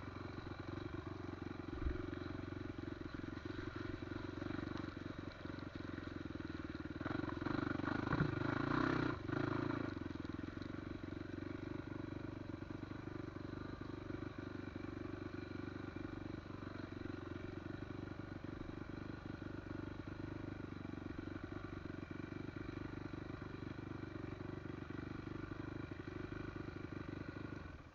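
Off-road trail motorcycle engine running steadily under way, rising in loudness for a couple of seconds about a quarter of the way in, then settling back; the sound cuts off suddenly at the end.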